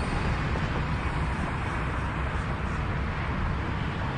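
Steady outdoor background noise, a low fluttering rumble with hiss above it, with nothing standing out.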